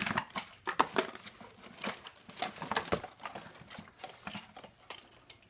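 Toy packaging being handled as the toy is worked out of its box: irregular rustling, crinkling and light clicks and knocks of cardboard and plastic.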